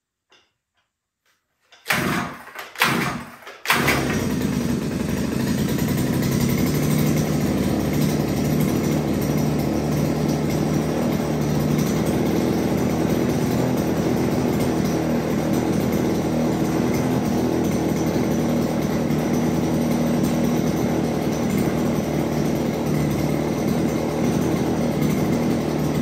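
Ice auger's two-stroke engine cold-starting: it sputters in a few short bursts about two seconds in, catches just before four seconds, then runs steadily. This is the test start after the over-rich carburetor mixture was leaned out.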